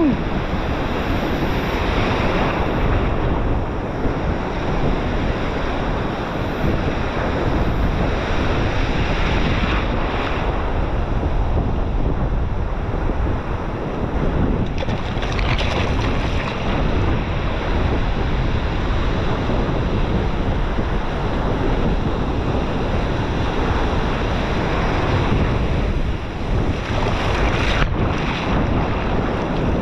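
Heavy surf breaking and washing in, with wind buffeting the microphone; the wash surges louder several times.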